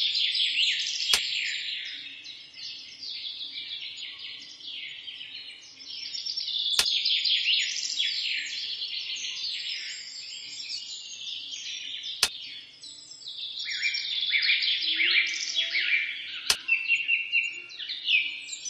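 Chorus of many small birds chirping and trilling without a break, swelling and fading. Four sharp clicks sound at intervals of several seconds.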